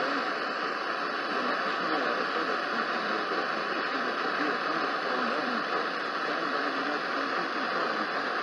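Steady radio static hiss from a receiver on a weak or empty signal, with faint wavering sound buried under the noise.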